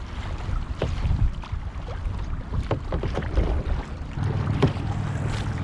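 Kayak paddles dipping and splashing in irregular strokes, with water dripping and lapping against the hull, over a low wind rumble on the microphone.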